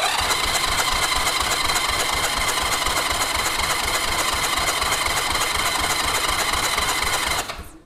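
Electric starter cranking a 1982 Honda Gold Wing Aspencade's flat-four engine over without it firing, for a compression test: a steady whine with an even, rapid pulsing. It stops suddenly near the end.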